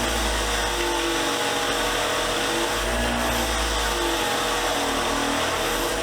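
A motor-driven fine wire wheel running steadily, brushing rust off small socket-set pieces: a constant motor hum under a scratchy whirr.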